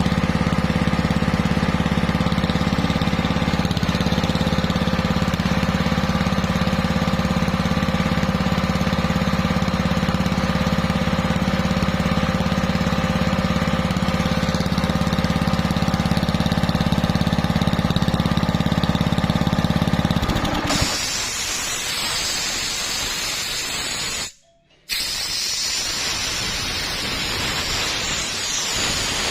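Air compressor running with a steady hum, stopping about two-thirds of the way through; then compressed air hisses out in a steady rush, which drops out briefly once for about half a second.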